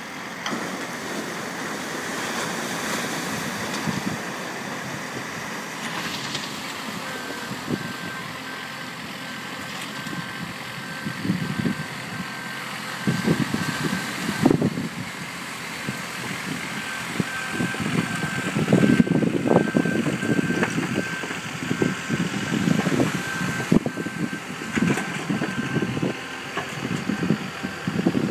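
Launch tractor engine running with a reversing alarm beeping evenly from several seconds in, pausing briefly about halfway, over surf breaking on the shore. Irregular low rumbles grow louder in the second half.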